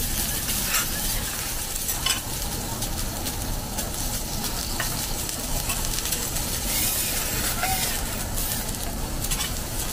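Food sizzling steadily on a hot teppanyaki steel griddle as a whole prawn cooks, with a few sharp clinks of metal spatulas on the plate near the start.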